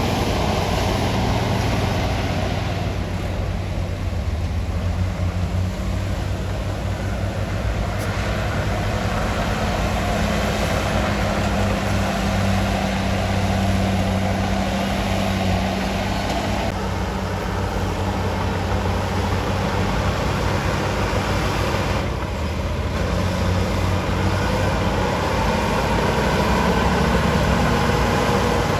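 Komatsu D53P bulldozer's diesel engine running steadily, with a few sudden shifts in the noise.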